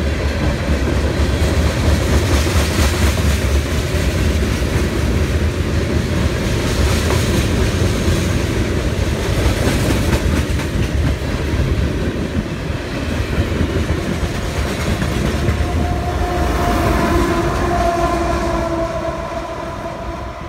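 Freight train of tank cars and covered hoppers passing close by: steady wheel rumble and rattle with clicking over the rail joints. Near the end a locomotive horn sounds, held for a few seconds.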